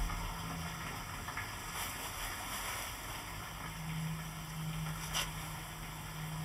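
Quiet, steady low hum and hiss with a few faint clicks: the near-wordless soundtrack of a TV drama scene set in a washroom.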